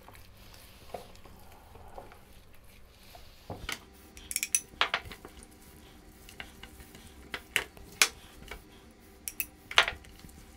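Gloved hands working masala paste into pieces of raw lamb in a plastic tub: wet squishing and handling of the meat, with scattered sharp knocks as the pieces and bones bump the tub. The knocks are loudest about four, eight and ten seconds in.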